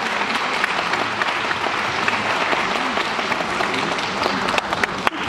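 Audience applauding at the end of a song, dense and steady, breaking up into a few separate claps near the end.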